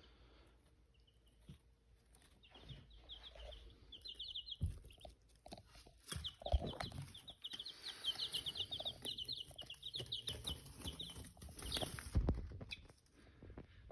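Young chickens and newly hatched ducklings in a brooder peeping in rapid runs of short, high calls, with a few soft thumps of the birds moving in the box.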